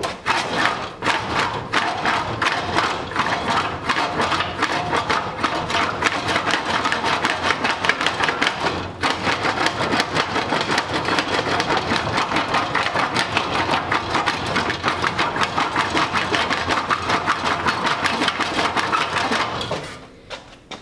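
Rusty steel 1935 Ford dash panel being rolled back and forth through a handheld cast English wheel with a brass upper wheel and a steel lower wheel, planishing out highs and lows: a loud, continuous rapid rattle of metal. It breaks off briefly about nine seconds in and stops shortly before the end.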